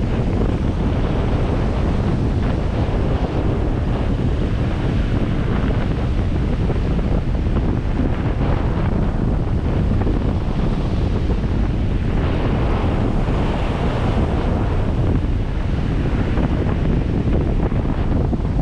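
Steady wind rumble and buffeting on the microphone of a camera mounted on a moving 4x4, with the wash of breaking surf alongside.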